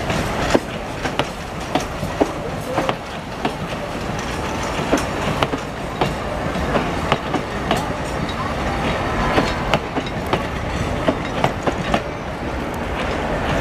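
Metre-gauge heritage passenger coaches rolling past, their wheels clicking irregularly over the rail joints above a steady rumble.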